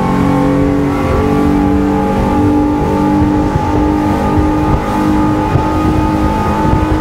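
Twin Honda BF250 V6 four-stroke outboard engines running flat out at wide-open throttle, with a steady whine that creeps up in pitch as they are trimmed out toward top speed. A constant rush of wind and water runs underneath.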